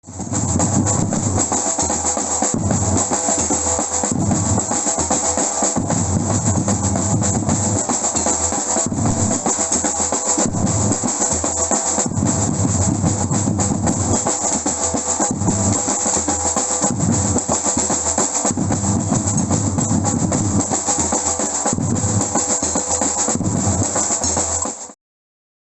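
Batucada samba percussion ensemble playing: deep surdo bass drums beating a repeating pattern under a dense, constant rattle of snare drums and shakers. It cuts off abruptly near the end.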